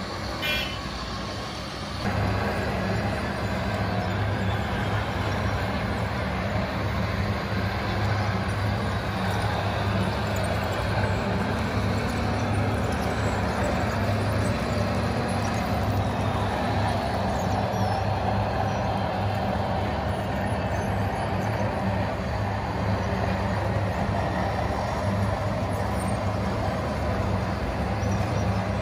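Radio-controlled scale model truck's electronic sound module playing a steady diesel engine sound; the hum gets louder about two seconds in and holds an even pitch.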